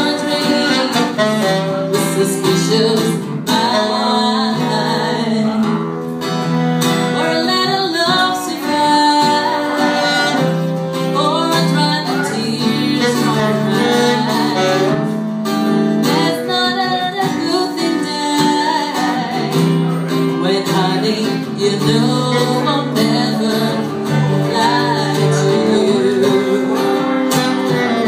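Live acoustic band playing a song: a woman sings lead over a strummed acoustic guitar and a saxophone.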